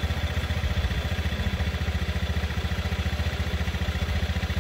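Motor scooter engine idling steadily: an even, fast low chugging of about a dozen pulses a second.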